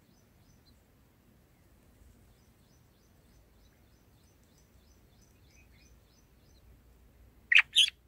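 Red-whiskered bulbul giving two loud, sharp calls in quick succession near the end, over a faint background of rapid, high ticking chirps.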